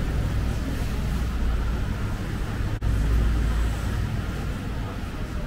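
Steady low background rumble, cut off for an instant about halfway through.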